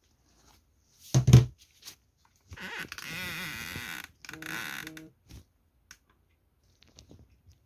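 A parcel being handled and opened: two loud thumps about a second in, then a few seconds of rasping, scraping noise, followed by faint light clicks near the end.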